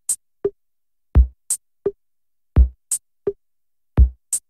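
Intro music: a bare drum-machine beat of a deep kick, a short high hit and a short mid-pitched knock, repeating about every second and a half.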